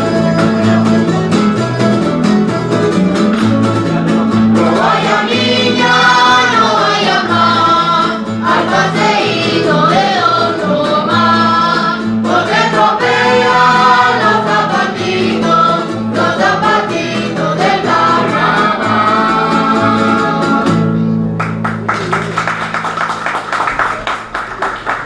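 Canarian folk group performing live: guitars and other plucked strings accompany voices singing together. The voices enter about five seconds in. The song ends about four seconds before the end on a held, rapidly strummed final chord.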